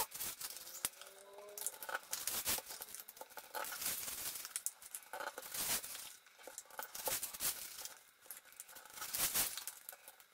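Square origami paper being folded and creased by hand into modules: irregular crinkling and rustling with sharp swipes as fingers press the diagonal folds flat.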